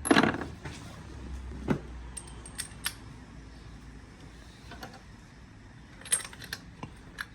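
Spark plugs and hand tools being handled: a louder clatter at the start, then scattered light metallic clicks and clinks.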